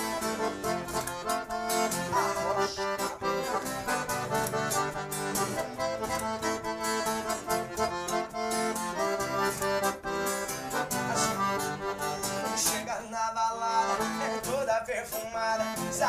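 Philharmonic piano accordion playing a lively instrumental solo in a sertanejo song, with the band keeping a steady beat behind it.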